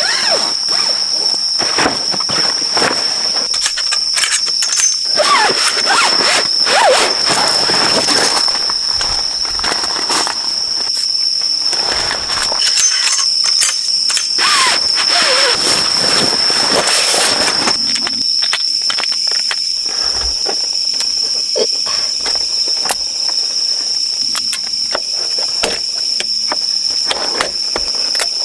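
A sectional folding camp cot being put together: its poles scrape and squeak as they are pushed through the nylon sleeves, with clicks and rustling of the fabric. Underneath, a steady high insect drone carries on throughout.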